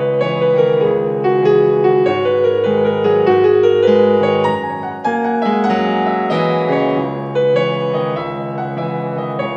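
Piano-led instrumental music played on a Yamaha MOXF keyboard synthesizer, with held chords that change every couple of seconds.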